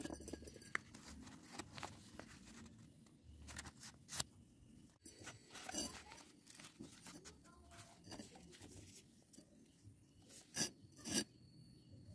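Sheets of paper rustling and crinkling as they are handled and wrapped around a steel pipe, with two louder clicks near the end.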